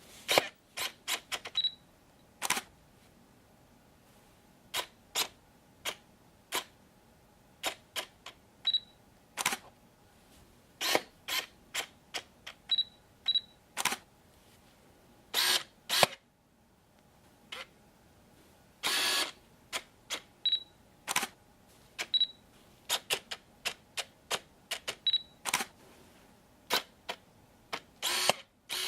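A camera with a telephoto lens catching focus: dozens of short, irregular clicks and brief whirs of the lens focusing, a few of them lasting about half a second. Several are followed by a short high beep, the camera's focus-confirmation signal, and shutter clicks are among them.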